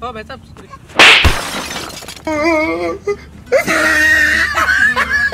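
A sudden loud crash about a second in, fading over about a second, followed by a voice crying out twice.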